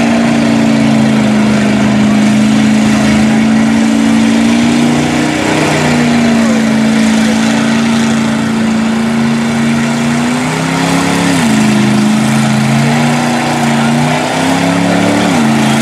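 Engine of a Toyota 4Runner-bodied mud truck on tractor tires, held at steady revs as it pushes through a deep mud hole; the pitch dips briefly three times, around a third of the way in, two-thirds of the way in and near the end.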